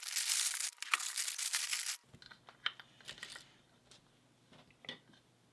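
Small lock parts being handled on a work surface: a scratchy rustle for about two seconds that stops abruptly, then a few faint light clicks.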